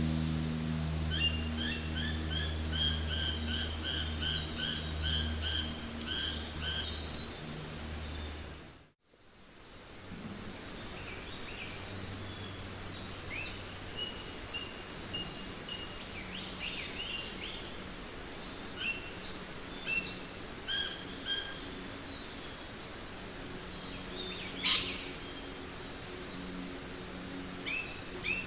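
Jungle ambience: many birds calling and chirping in quick repeated series, over a low steady hum that stops about nine seconds in. The sound drops out for a moment, then the birds carry on over a faint steady hiss.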